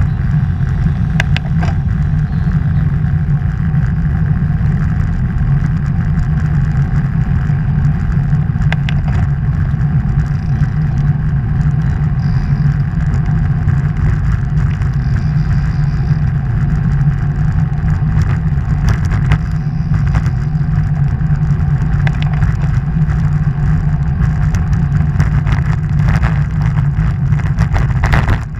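Steady wind rush and road rumble on a bicycle-mounted camera while riding along a road, with occasional sharp clicks and knocks.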